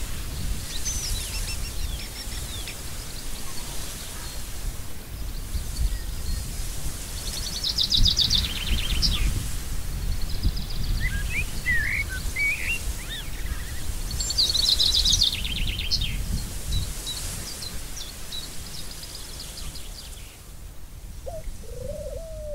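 Birds chirping, with a rapid trill about a third of the way in and another about two-thirds in, over a steady low background noise.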